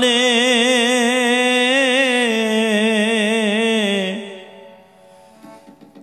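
Sikh shabad kirtan: a male voice holds the last note of the sung line with a wavering vibrato over harmonium. It fades out about four seconds in, leaving only faint harmonium and tabla before the next line begins.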